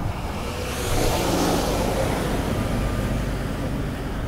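A minivan driving past close by: its tyre and engine noise swells about a second in, then slowly fades.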